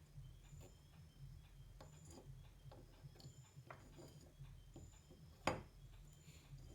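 Faint scattered clicks and taps of small tools and wires being handled, with one sharper click about five and a half seconds in, over a low steady hum.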